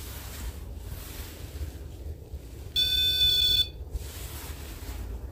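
REM pod's electronic alarm tone sounding once for just under a second, about three seconds in. It is set off by a hand brought near its antenna, not by anything unseen.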